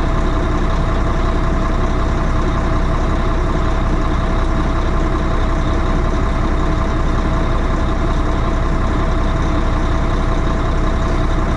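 Peterbilt 386 diesel truck engine idling steadily, with a steady tone running over it, as it runs with a freshly replaced air compressor discharge hose.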